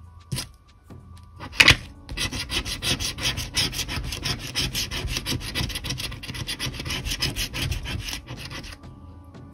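A coin scraping the latex coating off a scratch-off lottery ticket. After a couple of sharp clicks, fast back-and-forth scratching strokes start about two seconds in and stop about a second before the end.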